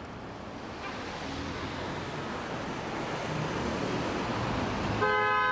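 A whooshing noise swell that grows gradually louder, like a transition riser sound effect. About five seconds in it ends on a short, bright chime-like chord of steady tones.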